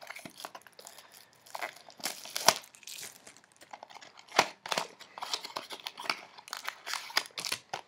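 Irregular crinkling and rustling of trading card packs and cards being handled, with short crackly noises of uneven loudness.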